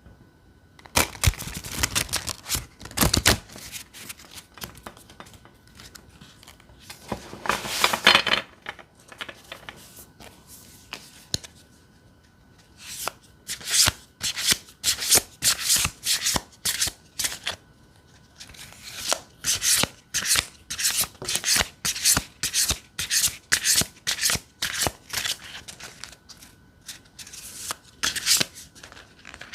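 Tarot cards of the Lioness Oracle Tarot deck being shuffled by hand. Two short bursts of riffling card noise come first, then a long run of quick, separate flicks of the cards, about two a second.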